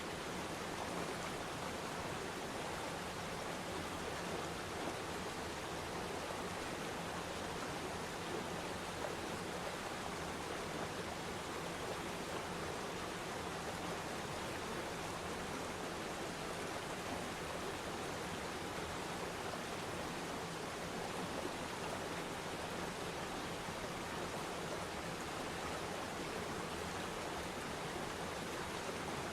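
Aquarium sand waterfall running: a steady rush of water and bubbling air, with a faint low hum underneath.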